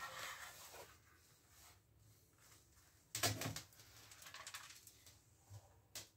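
Faint handling noises: a few soft knocks and rubs, with one louder knock about three seconds in and a sharp click near the end.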